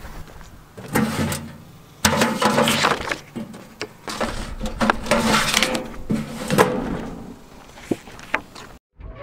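A curbside mailbox being opened and paper mail pulled out, heard as several separate bursts of clatter and paper rustling with short clicks between them.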